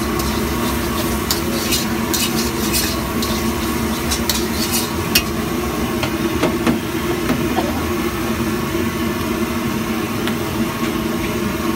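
A metal spatula scrapes and stirs egg masala sizzling in a steel wok, with quick strokes for about the first five seconds, then stops. A steady low hum and the sizzle carry on throughout.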